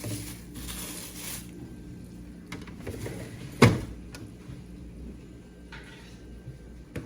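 Quiet room with a faint steady low hum and a few light knocks, the sharpest about three and a half seconds in.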